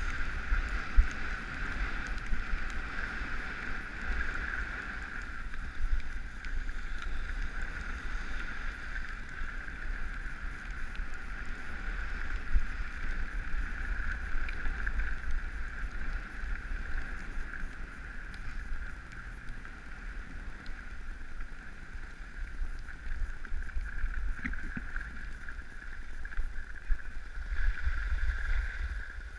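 Skis hissing and scraping steadily over packed snow on a downhill run, with wind buffeting the microphone in a low, gusty rumble.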